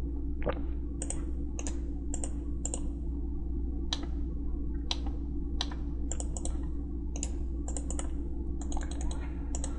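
Irregular clicks of a computer mouse and keyboard as CAD software is operated, some single and some in quick runs, over a steady low hum.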